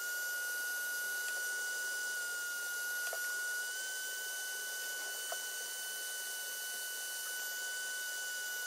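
Electric heat gun running: a steady high-pitched whine from its fan motor over the hiss of the hot air flow. The pitch rises slightly about halfway through.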